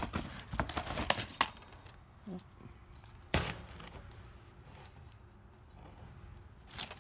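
Plastic DVD cases and cardboard being handled: a few sharp clacks with light crinkling and rustling, a cluster in the first second and a half and another sharp clack about three and a half seconds in.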